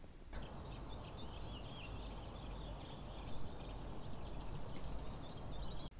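Faint outdoor ambience: birds chirping and twittering over a steady low background rumble, cutting off abruptly near the end.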